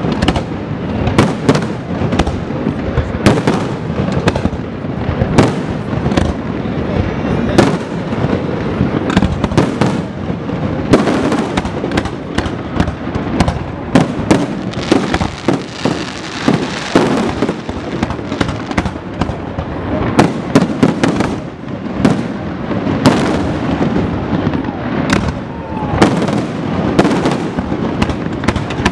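Aerial fireworks display: a dense, continuous barrage of shell bursts, several sharp bangs a second, with a rumbling, crackling wash between them.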